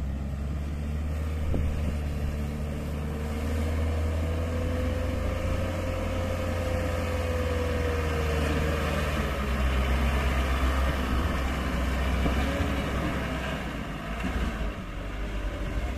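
Hino Dutro dump truck's diesel engine running hard under load as the loaded truck tries to pull free from soft ground where it has sunk in. A whine rises and then falls over several seconds, and the engine grows louder near the middle of the stretch.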